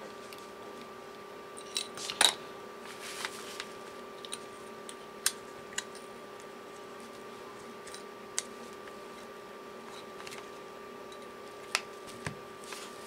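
Scattered small clicks and taps of plastic and metal as a Tram D201A 40-channel selector's cover and parts are handled and fitted together by hand. The loudest clicks come about two seconds in, and there is a steady electrical hum under them.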